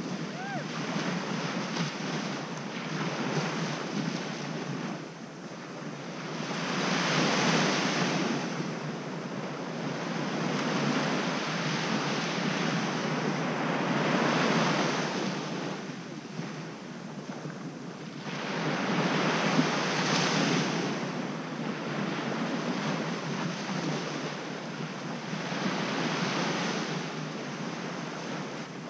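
Small Gulf surf breaking and washing up a sandy beach, swelling and fading in slow surges about every six seconds.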